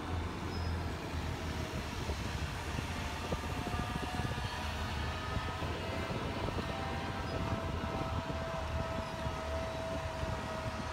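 Haying machinery running steadily, a New Holland H7450 disc mower-conditioner behind its tractor: a low, even engine hum with a faint whine that slowly rises in pitch.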